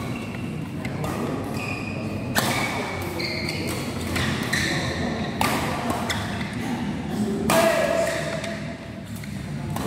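Badminton rackets striking the shuttlecock in a doubles rally: sharp hits every second or two, the loudest about three quarters of the way through, echoing in a large hall over spectators' chatter.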